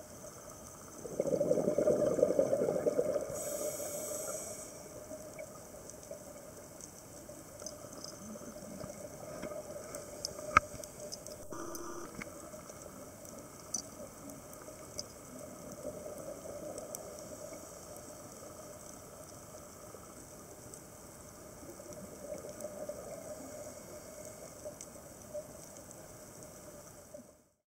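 Underwater sound picked up through a camera housing: a diver's exhaled bubbles gurgle loudly about a second in and more softly near the end. Between them is a steady hiss with scattered sharp clicks.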